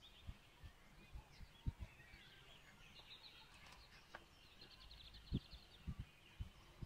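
Faint, irregular soft thuds of a hand squeezing and pressing flour and water into dough in a glass bowl. Birds chirp faintly in the background, with a short rapid trill near the middle.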